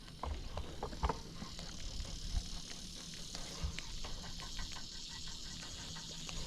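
Quiet outdoor ambience: a steady high hiss that grows a little after a second or so, a low rumble, and scattered small clicks and knocks.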